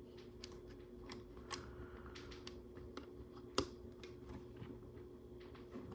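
Plastic LEGO pieces being handled: scattered faint clicks and taps, with one sharper click about three and a half seconds in, over a faint steady hum.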